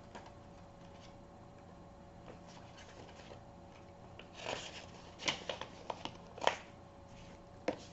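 Pages of a small paperback guidebook being flipped, giving a quiet stretch and then a run of short paper rustles and flicks from about halfway through, over a faint steady hum.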